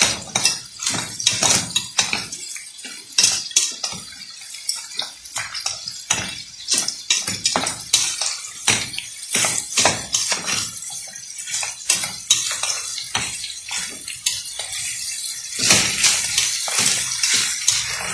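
Wooden spoon turning a steel pot of crayfish and mussels: the hard shells clatter irregularly against each other and the metal, with wet sloshing.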